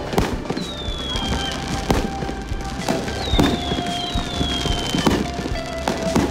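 Fireworks display going off: a rapid run of bangs and crackles from rising comets and bursting shells, with several high whistles that slide down in pitch.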